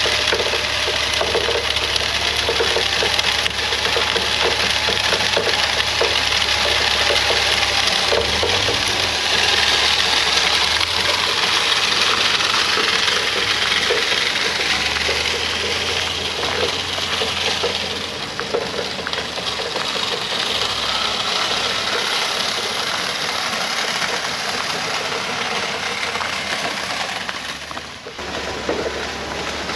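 Vehicle driving: a steady engine hum with road noise and a constant light rattling, the engine note shifting a couple of times.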